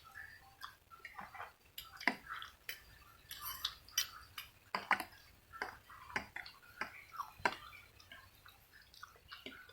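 A person eating instant noodles close to the microphone: irregular wet chewing and mouth clicks, a few a second.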